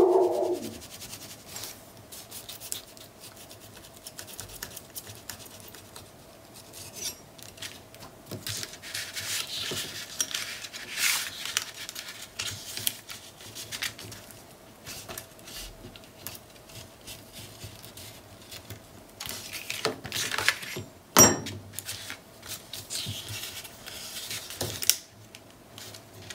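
Paper rustling and scraping as a thin metal spatula lifts the edges of cardstock strips off patterned paper, the tape under them loosened with adhesive remover. A dull knock at the very start and a sharp click later on.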